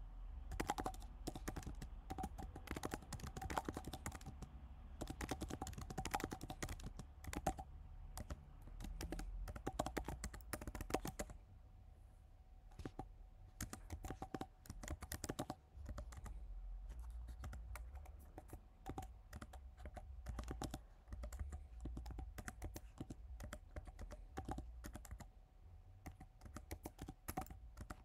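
Typing on a computer keyboard: quick, irregular runs of key clicks broken by short pauses.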